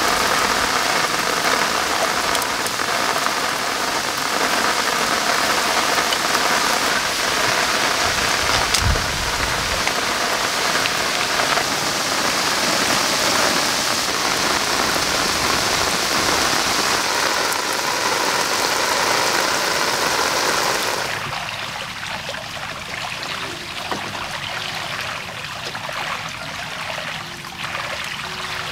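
Heavy rain falling, a loud steady hiss, with a single thump about nine seconds in. About twenty-one seconds in the rain cuts off abruptly, leaving quieter outdoor sound with light knocks.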